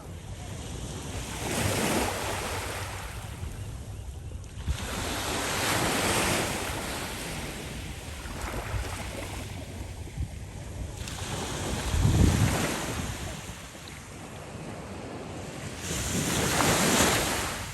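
Ocean surf breaking and washing up the beach, swelling and fading four times, the surge about twelve seconds in the loudest with a deep rumble. Wind buffets the microphone throughout.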